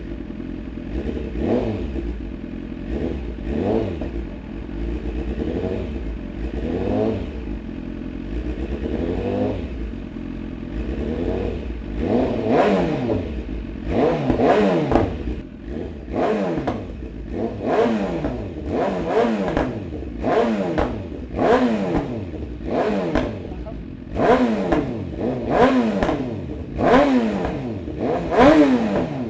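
A warmed-up 2018 BMW S1000R's inline-four engine with an Akrapovic exhaust being revved at a standstill: a string of short throttle blips, each rising and falling back to idle. The blips are gentler at first, then sharper, louder and closer together from about halfway on.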